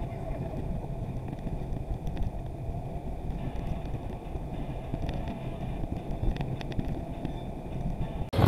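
Off-road vehicle driving along a trail: a steady low engine and ground rumble. It cuts abruptly to a louder, harsher noise at the very end.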